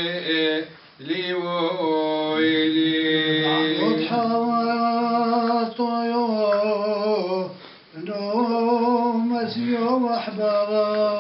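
A man singing unaccompanied in a chant-like style, holding long steady notes in phrases. He pauses for breath about a second in and again near eight seconds.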